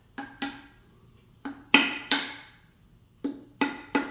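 Eight sharp strikes on a jammed, rusted metal part of a Browning BPS shotgun, each with a short metallic ring at the same pitch. The strikes come in uneven groups of two or three, and the loudest falls a little under two seconds in.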